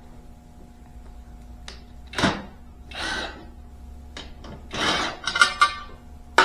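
Impact wrench run in three or four short bursts, backing out the 9/16 bolts that hold the mower's seat assembly.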